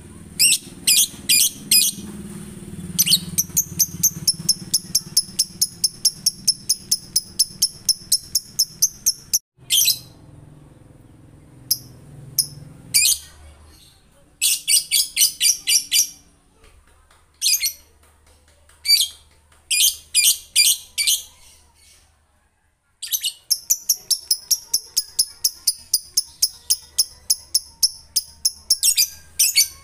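Male lovebird ngekek: long runs of rapid, high repeated chirps, about five a second. Two runs last about six seconds each, one in the first third and one near the end, with shorter bursts of chirps between them.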